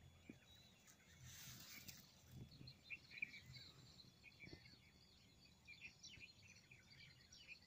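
Faint chirping of small birds over a very quiet outdoor background, with a brief rustling noise about a second and a half in.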